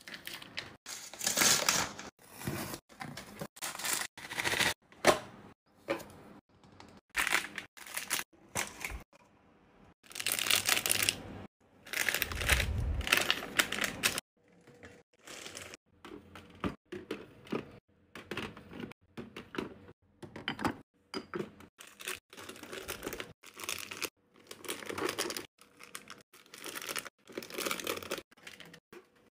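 Packaging being handled and opened, crinkling and tearing in many short, irregular bursts, with two longer stretches of continuous rustling about ten to fourteen seconds in.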